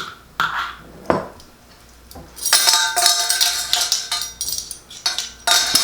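A metal spoon clinking and scraping against kitchenware while mustard is spooned out. There are a few sharp clicks at first, a dense stretch of ringing clatter about two and a half seconds in, and a few more clinks near the end.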